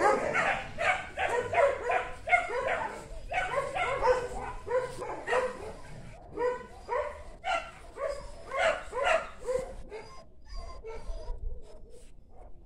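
A dog barking and yipping over and over, about two to three short barks a second, the barks thinning out and getting fainter in the last few seconds.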